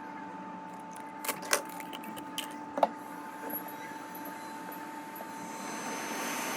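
A few sharp clicks of tools on the bench, then near the end a hot-air rework station starts blowing, a steady rising hiss with a thin high whine, as the power-management IC is about to be heated off the board.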